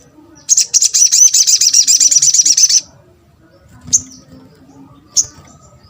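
Sogon (sogok ontong, a spiderhunter) singing: a loud, rapid trill of high chirps for about two seconds, followed by two single sharp call notes.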